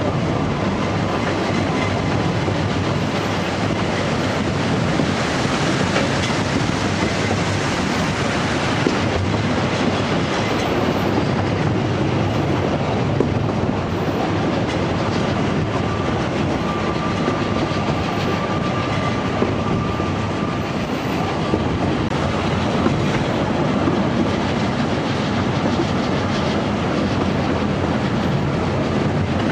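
Narrow-gauge steam train running steadily, heard from an open coach: a continuous rumble of the coaches with wheels clicking over the rails. A thin high whine sounds for a few seconds past the middle.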